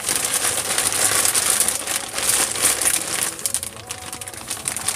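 Clear plastic parts bags crinkling as hands handle them: a steady run of dense crackles, easing a little near the end.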